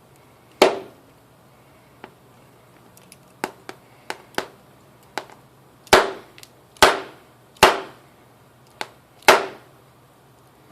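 A screwdriver striking an iPad's glass screen: five hard blows and a scatter of lighter taps in between, each blow sharp with a brief ring.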